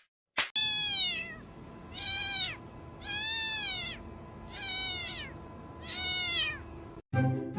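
A cat meowing five times, each meow a drawn-out call that rises then falls in pitch, spaced about a second apart. A sharp click just before the first meow, and music cuts in near the end.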